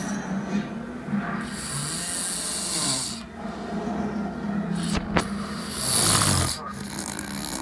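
A man snoring in his sleep: two long, hissing snores, the louder one about six seconds in.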